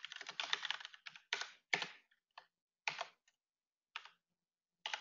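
Typing on a computer keyboard: a fast run of keystrokes through the first second, then slower, separate keystrokes and short bursts about every half second.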